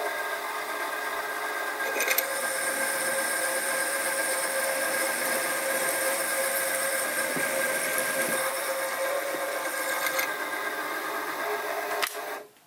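Sieg SX2P mini mill's spindle running with a steady whine while a drill bit cuts a 6 mm hole in a small metal crankshaft web. The cut from about two to ten seconds in adds a louder, harsher edge; the motor stops near the end.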